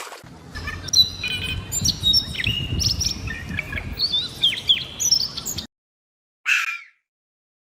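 Birds chirping with many quick whistled notes that glide up and down. They stop abruptly about five and a half seconds in, and a single short harsh call follows about a second later.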